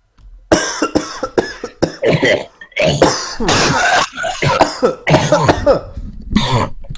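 A person coughing hard in a rapid, continuous fit of many coughs, some with a throaty, voiced rasp, starting about half a second in.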